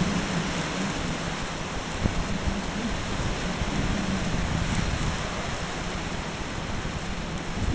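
Tropical storm wind and wind-driven rain: a steady rushing noise with an uneven low rumble from the gusts.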